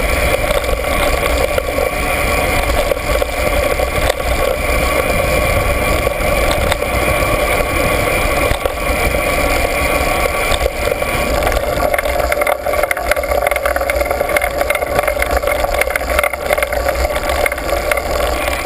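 Riding noise from a trail descent: wind rumble on the mounted camera's microphone and jolting rattles from the rough dirt surface, over a steady drone that weakens a little past the middle.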